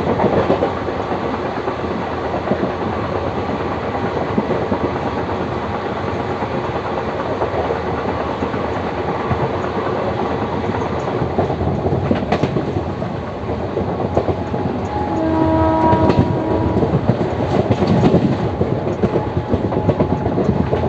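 Express train running through a station at high speed, its wheels rumbling and clattering steadily over the track. A locomotive horn sounds once, a steady tone lasting about a second and a half, some 15 seconds in.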